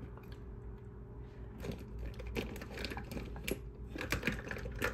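Faint clicks and taps of small objects being handled and moved about, over a steady low room hum.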